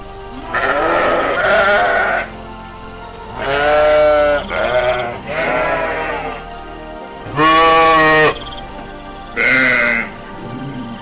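Sheep bleating repeatedly: about six wavering bleats of varying length, one after another, the loudest about three-quarters of the way through.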